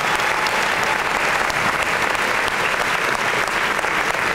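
Audience applause in a large gym: many people clapping steadily, a dense unbroken patter.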